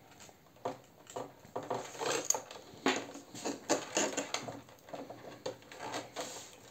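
Handling noise from wiring work inside a 3D-printed plastic wing fuselage: irregular clicks and rustles of wires, connectors and the plastic shell being handled as the leads are plugged in and tucked away.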